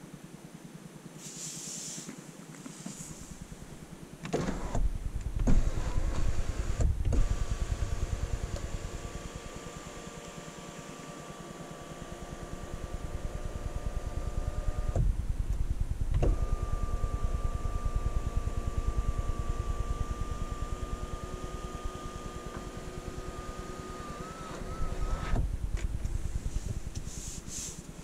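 Electric motor of a panoramic sunroof running: a steady whine over a low rumble for about ten seconds, a short stop, then running again for about nine seconds before it halts.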